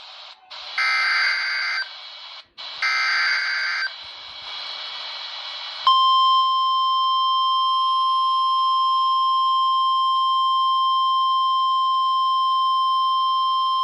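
Weather radio receiving an emergency alert over its speaker: two bursts of about a second each of harsh, buzzy digital data tones, the SAME header that codes the warning, separated by short gaps and followed by a second or two of radio hiss. About six seconds in, the steady 1050 Hz NOAA Weather Radio warning alarm tone starts and holds, a single unwavering beep signalling that a warning is being issued.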